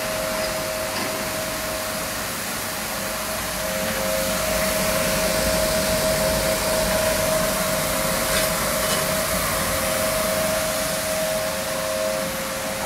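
Automatic rug washing machine running through its rinse cycle, its rotating brushes and water working over a wet rug: a steady, noisy wash with a constant motor whine, a little louder through the middle.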